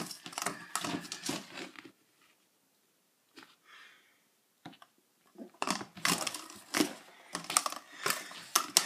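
Rapid clicking, tapping and rustling as an empty cardboard toilet-paper tube is knocked and rolled about on a hard floor by hand. The tapping stops for about three seconds in the middle, with only a few faint taps, then starts again.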